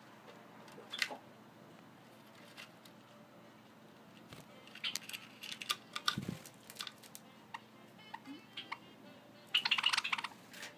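Java sparrow giving short, sharp chip calls and clicks in scattered bursts, busiest in the middle, with a fast run of calls near the end that is the loudest part; this is the threatening display of a male guarding his nest box. A soft low thump comes about six seconds in.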